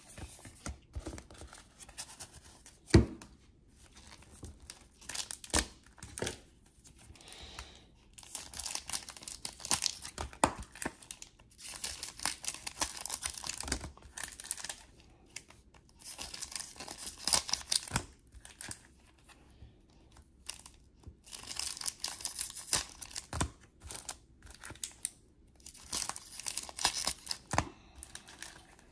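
Basketball card pack wrappers tearing and crinkling as packs are opened, in repeated short bouts with pauses between. Sharp taps or clicks come in between, the loudest about three seconds in.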